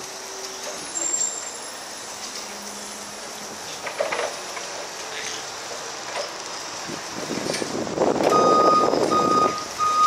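Reversing alarm of a Bendi B40 electric articulated forklift sounding near the end: about three even, single-pitched beeps, each a little over half a second long. The beeps come over a loud rushing noise from the moving truck that swells just before them.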